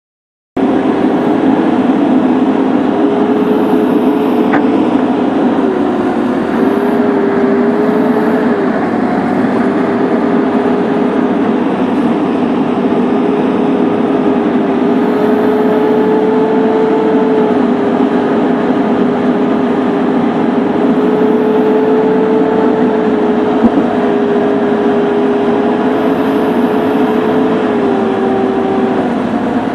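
Excavator's diesel engine running steadily under working load, its pitch dipping briefly now and then, with a couple of brief clicks.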